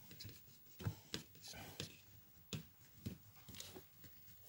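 Faint, scattered clicks and light knocks, about half a dozen over a few seconds, from handling a screwdriver and screws at a loose fitting.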